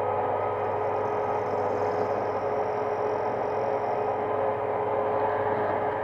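Metal-turning lathe running steadily, its chuck spinning a brass bar blank. It makes a constant mechanical hum with a couple of steady whining tones from the motor and gear train.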